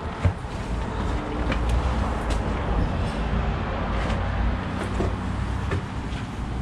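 Footsteps on an old wooden staircase, a few faint irregular knocks, over a steady low rumble.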